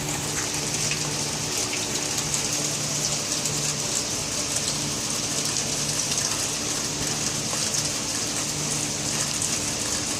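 Steady rain falling, an even hiss with scattered fine drop sounds, over a faint steady low hum.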